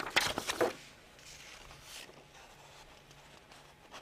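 A few short rustles and clicks of paper being handled in the first second, then quiet room tone with a faint low hum.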